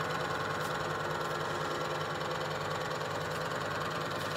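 Orbital riveter's motor running with a steady hum, its head idle between cycles.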